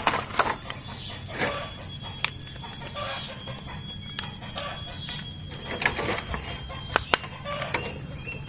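Hens clucking in short calls every second or so, with a few sharp clicks over a steady high hiss.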